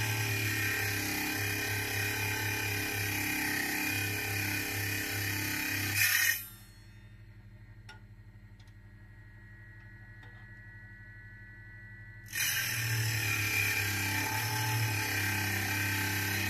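TornaTürk T03 mini lathe running as a rod of material is worked against it, a loud steady machine noise. It breaks off about six seconds in, leaving a faint high whine and a few light clicks, and starts again about twelve seconds in.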